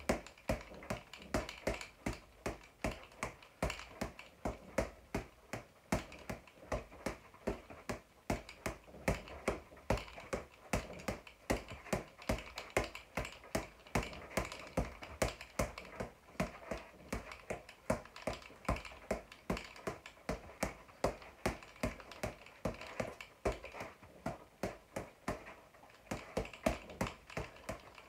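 Boxing gloves punching a floor-to-ceiling ball in a quick, steady rhythm of sharp slaps, about two to three hits a second.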